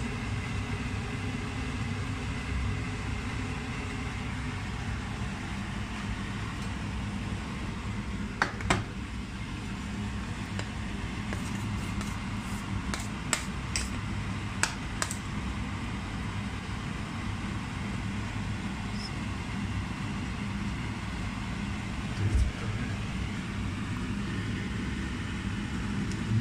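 Steady hum and hiss of stovetop cooking, with a few light clicks from about a third of the way in.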